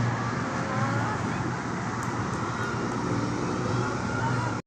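Road traffic noise: vehicles running past with a steady rushing hiss. A low engine hum fades out within the first moment, and a few faint sliding tones sound in the background.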